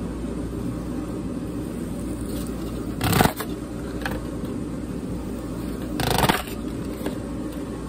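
A fidget spinner scraping and tearing at the rim of a white disposable cup: two short scrapes, about three seconds in and again about six seconds in, over a steady low hum.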